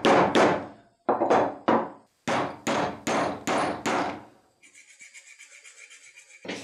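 A mallet striking a leather knife sheath laid on a cork pad: about ten dull knocks in uneven runs over four seconds, the later blows driving a metal punch into the leather. A faint fine rustle follows.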